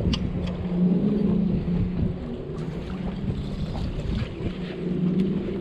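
A steady low motor hum, with wind noise on the microphone and a few faint clicks.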